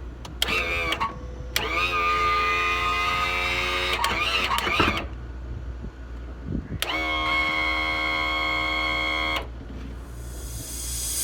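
Electric starter motor of a Yamaha V8 350 outboard cranking in two spells of about two and a half seconds each, a steady whine that rises slightly as each spell begins and cuts off abruptly, without the engine catching.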